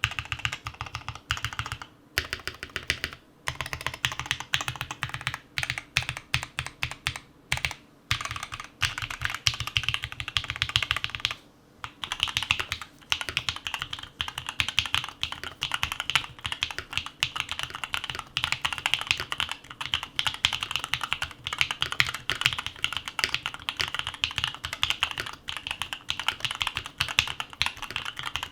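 Fast typing on an Odin Gaming Nova65 mechanical keyboard with Tecsee linear switches: a dense stream of keystroke clacks, broken by brief pauses about 2, 3, 8 and 12 seconds in. From about 12 seconds on the keystrokes sound brighter, with less low thock.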